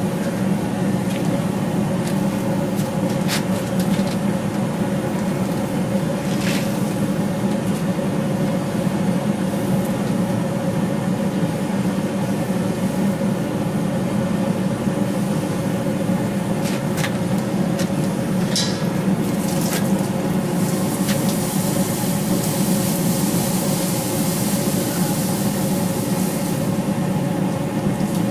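Hydraulic forging press with its motor running steadily, during pressing of a forge-welded billet. A few sharp clicks come through, and a hiss rises about two-thirds of the way in.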